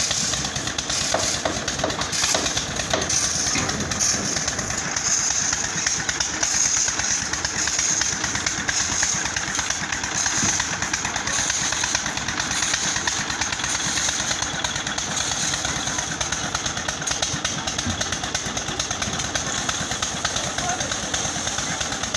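Engine of a trailer-mounted concrete mixer running steadily at a building site's mixing station.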